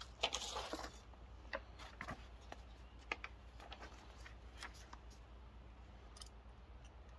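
Faint rustle of a paper instruction sheet being picked up and handled, lasting about a second near the start, followed by scattered light clicks and taps from handling.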